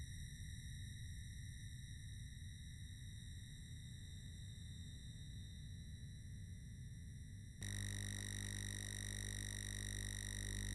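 Faint steady electrical whine and hum with no speech, made of several fixed tones over a low rumble. About three-quarters of the way through it suddenly grows louder and gains a stronger deep buzz.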